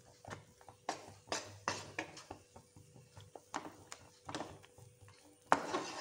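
Wooden spatula scraping and knocking against a non-stick frying pan while stirring a thick chocolate fudge mixture, in irregular strokes. Near the end there is a louder knock and scrape as the pan tips on the stove grate.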